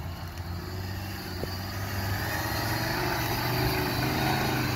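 Land Rover Defender 90's engine running at low revs as it crawls over a rutted forest track, with a steady low hum that grows a little louder about halfway through.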